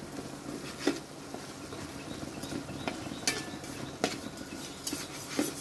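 Metal spatula scraping and knocking against a wide metal wok while stirring spice paste frying in oil, with a low sizzle underneath; the knocks come irregularly, about five in the stretch.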